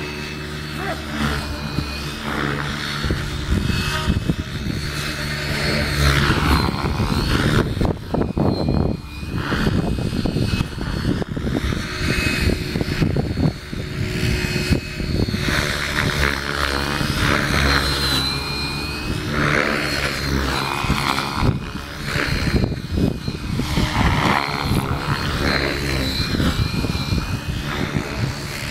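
Electric 700-size RC helicopter (Beam E6 AvantGarde V2 with an Align 700MX motor) in flight: rotor blades whirring over a motor whine that rises and falls in pitch as it manoeuvres. Heavy wind buffeting the microphone runs through it.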